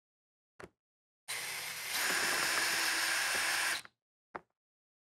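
Cordless drill with a Phillips bit running steadily for about two and a half seconds, backing a screw out of the front of an RV air conditioner's cover, its pitch stepping up partway through. A short click comes before and after the run.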